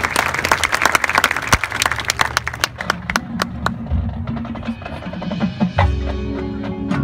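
Marching band playing outdoors: quick sharp percussion clicks at first, then held low chords from the band coming in about halfway, with a fuller chord near the end.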